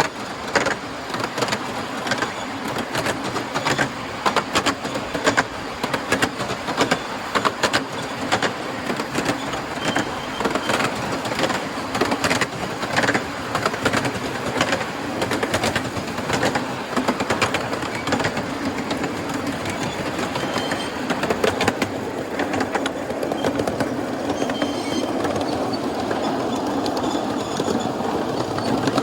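A miniature 7¼-inch gauge live steam train running on its track, with a quick, uneven clatter of clicks from the wheels and running gear. The clicking thins out over the last several seconds.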